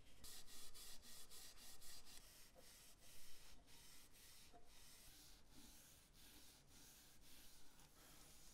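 Faint rubbing strokes of a folded wipe on a new wooden hatchet handle as an oil finish is rubbed into the wood. The strokes come a few a second and grow softer after the first few seconds.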